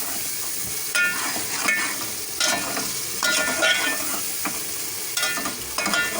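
Spice masala and potatoes frying in oil in a pot with a steady sizzle, while a spoon stirs them, scraping the pot in repeated strokes about once a second. This is the bhuna stage, where the masala is fried down.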